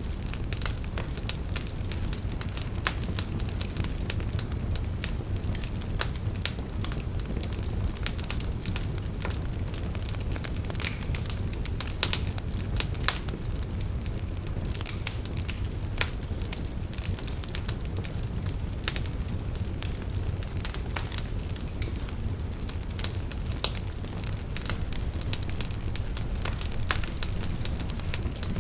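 Wood fire burning steadily, with a low rumble of the flames and many sharp, irregular crackles and pops from the burning wood.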